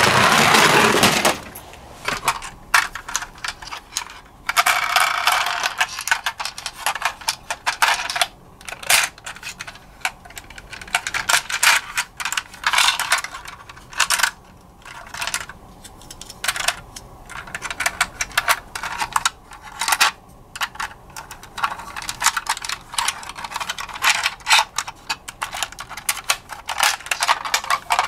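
Plastic toy ambulance being handled: irregular sharp clicks and short rattles as its hinged plastic rear door and parts are opened, moved and snapped back. At the very start a toy car rolls down a ramp, a loud rolling noise that stops about a second in.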